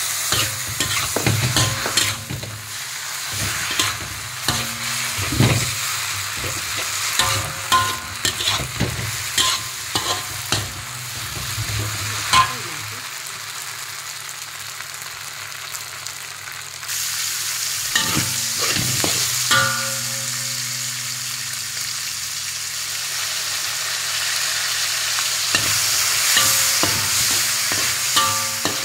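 Metal spatula scraping and clanking against a large metal wok as flat rice noodles are stir-fried, over a light sizzle. A little past halfway the sizzle turns abruptly louder and steadier as diced meat fries in oil, with further spatula scrapes.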